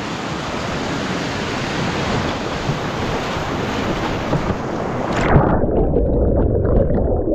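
Whitewater rapids rushing loudly and steadily. A little over five seconds in, the sound suddenly turns muffled and low, with the microphone going under water.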